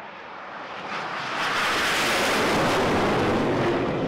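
Jet noise from the X-47B's single Pratt & Whitney F100 turbofan as it passes low overhead: a rushing sound that swells about a second in, holds loud, and starts to ease near the end.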